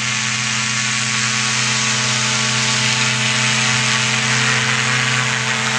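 Powered parachute trike's engine and propeller running steadily with an even, buzzing drone during the takeoff run.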